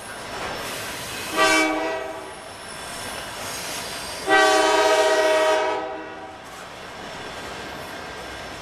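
Air horn of Norfolk Southern GE Dash 9 locomotive 9885 sounding a multi-note chord in two blasts, a short one about a second in and a longer one of nearly two seconds midway, as part of a horn show. Underneath runs the steady rolling noise of the passing train.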